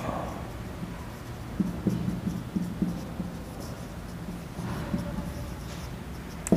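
Handwriting: faint scratchy pen strokes in short runs, busiest about a second and a half to three seconds in, over a low hum.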